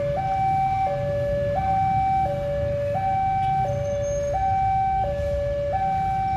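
An electronic two-tone warning siren alternating steadily between a higher and a lower note, each held a little under a second, over a low rumble.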